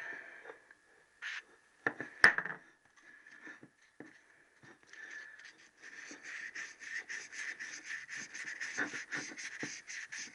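A few knocks as metal engine parts are handled on a wooden bench, then, from about halfway, quick back-and-forth rubbing of 1000-grit wet-and-dry carborundum paper on the big-end eye of a Triumph T120R alloy connecting rod, taking off carbon, not metal.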